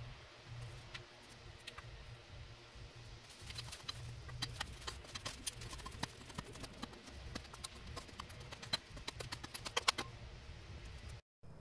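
Short-handled digging tool chopping and scraping into a dirt wall, with many sharp clicks and knocks as the blade strikes soil and small stones, sparse at first and coming thick and fast through the second half.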